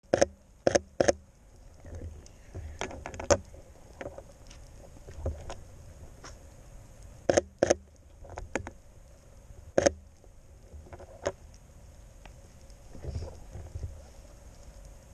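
Camera shutter of a Sony A7 III firing, in single shots and quick pairs: about a dozen sharp clicks spread through the stretch.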